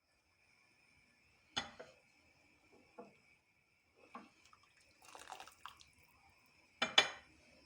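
Dishes and utensils being handled in a kitchen: about six separate light clinks and knocks spread out, the loudest two close together near the end, over a faint steady high-pitched tone.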